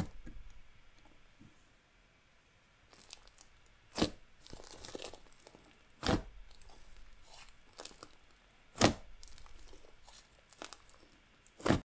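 Thick, fluffy white-glue inflating slime squished, poked and stretched by hand: soft crackly squishing broken by sharp pops every two to three seconds as trapped air pockets burst.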